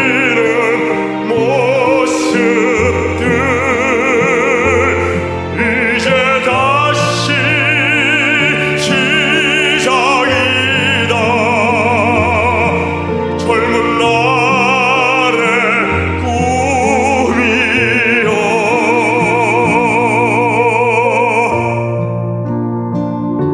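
A male baritone sings a Korean ballad in an operatic style with wide vibrato, over a backing track with a bass line and sharp percussion hits. He holds a long final note and stops about 22 seconds in, leaving the accompaniment.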